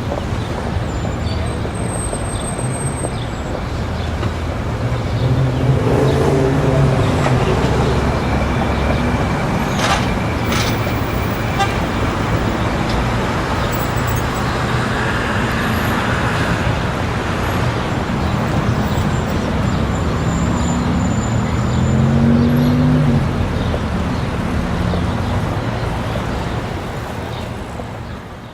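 Busy city street ambience: steady traffic noise mixed with the voices of a crowd, fading out near the end.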